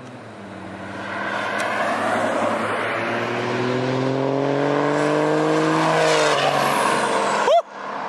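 A fourth-gen Ram's turbocharged 6.7 Cummins diesel accelerating hard toward and past the listener, its engine note rising in pitch with a high turbo whistle over it. The sound drops away sharply about six seconds in and cuts off abruptly near the end.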